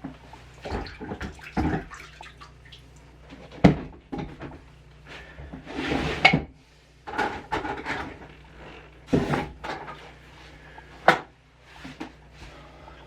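Waterstone sharpening work: irregular knocks and clatter of a blade and wet stone being handled, with short scraping or splashing sounds and a few sharp knocks.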